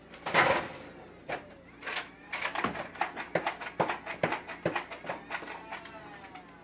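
A run of sharp clicks and knocks, irregular and several a second, with a louder rustling burst about half a second in.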